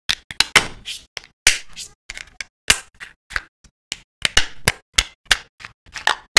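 Hard plastic toy-boat parts being pressed and snapped together by hand: a quick, irregular string of sharp clicks and snaps, several a second.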